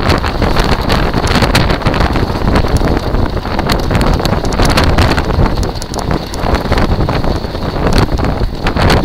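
Heavy wind buffeting the microphone of a moving kite buggy, with its wheels rattling over shingle in frequent sharp clicks.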